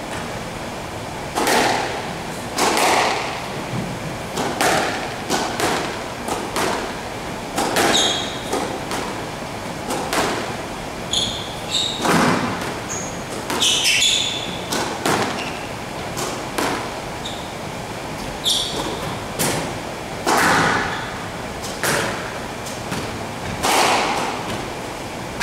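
Squash rally: the ball being struck by rackets and thudding off the walls, a sharp hit every second or two with a short echo. Rubber-soled shoes squeak briefly on the hardwood floor between shots.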